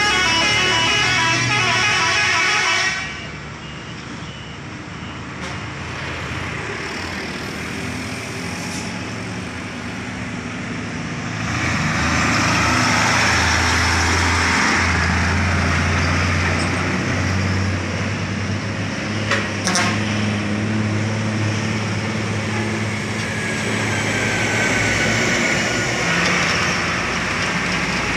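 Diesel engines of heavily loaded sugarcane trucks driving past, the engine sound swelling loud about eleven seconds in as a truck passes close. A vehicle horn sounds in a rapid pulsing pattern for about the first three seconds.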